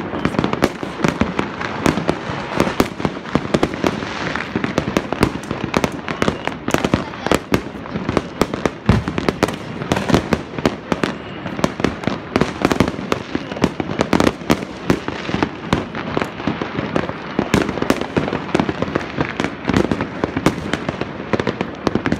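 Many fireworks going off at once: a dense, continuous run of bangs and crackling pops with no let-up.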